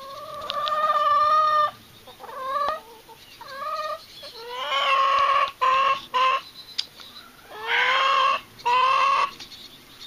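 Chickens calling loudly over and over: a run of drawn-out squawks, the longest held for over a second, some rising in pitch at the start, with short clucks between them.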